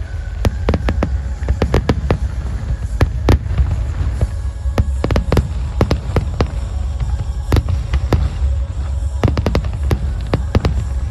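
Fireworks display: a dense, irregular run of sharp cracks and pops, several a second, over a continuous deep rumble of booms.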